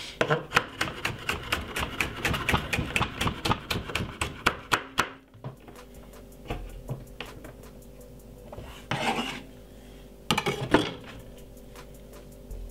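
Kitchen knife slicing a red bell pepper into thin strips on a wooden cutting board: a quick run of strokes for about five seconds that then stops, followed by two short scraping sounds later on.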